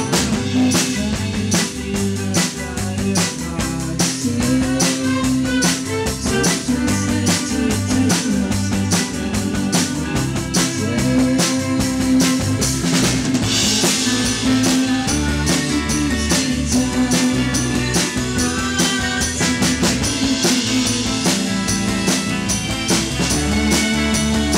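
Live band playing a song: a drum kit keeps a steady beat under acoustic and electric guitars and a violin holding long notes, with a cymbal crash about halfway through.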